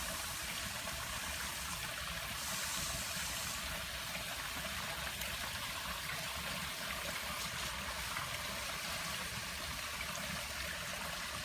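Water running steadily down a backyard rockery waterfall and stream.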